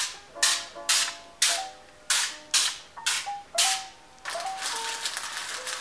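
Aerosol can of cooking spray giving about eight short hisses, one burst into each paper muffin liner, then a longer steady spray from about four seconds in.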